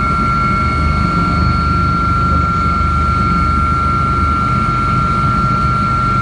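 Helicopter in flight heard from inside the cabin: a steady, loud low rumble from the rotors with a constant high-pitched whine over it.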